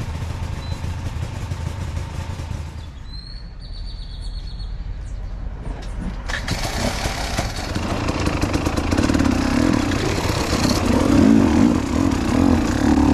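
Enduro dirt-bike engines: a low rumble at first, a single short bird chirp about three seconds in, then from about six seconds in the motorcycle engines run loud and build steadily as the bikes ride off on the sandy track.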